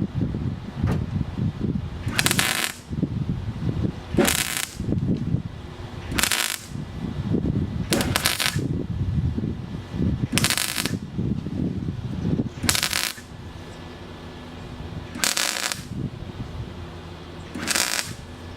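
Welder laying a series of short tack welds on car body sheet metal: eight brief crackling bursts, each about half a second long, roughly every two seconds, over a low rumble.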